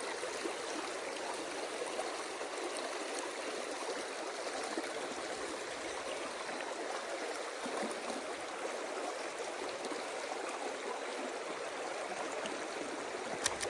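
Steady rushing of a mountain river's current over rocks, with a single sharp click near the end.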